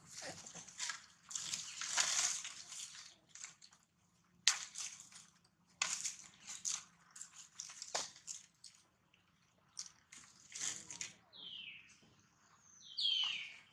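Dry leaf litter crunching and rustling in irregular bursts with scattered sharp clicks as macaques shift about while grooming. Near the end a high-pitched call slides downward twice.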